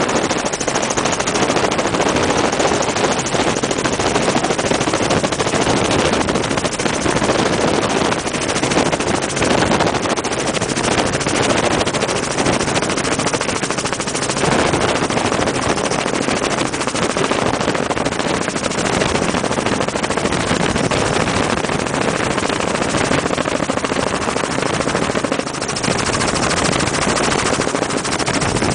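Helicopter in flight heard from inside the cabin: steady, loud engine and rotor noise with a rapid chopping beat, mixed with wind rush through the open door.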